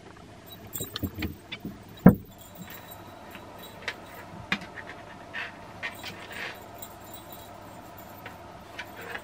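Cat playing with toys on a wooden floor: a few knocks, then one heavy thump about two seconds in, followed by scattered light taps, clicks and short rattles.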